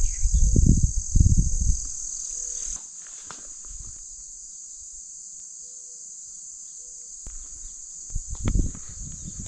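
Steady high-pitched chorus of crickets, which gets quieter about three seconds in. Footsteps through the woods thud in the first two seconds and again near the end.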